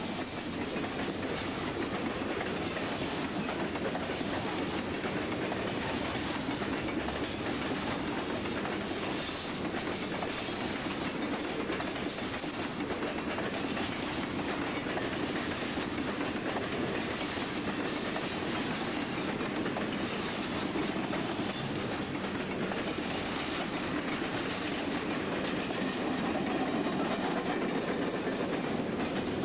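Freight train cars rolling past, a steady rumble of steel wheels on the rails with a clickety-clack of wheels running over the track, getting a little louder near the end.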